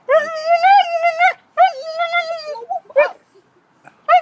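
Siberian husky 'talking': two drawn-out, wavering howl-like whines of about a second each, then a short rising yelp, and another call beginning at the very end. The dog is begging for the plate of chicken held out to it.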